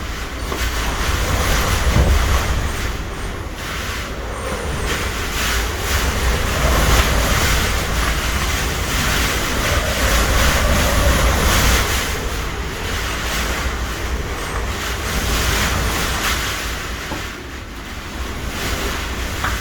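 Typhoon wind gusting hard against the microphone, with heavy surf breaking on the shore. The gusts swell and ease every few seconds.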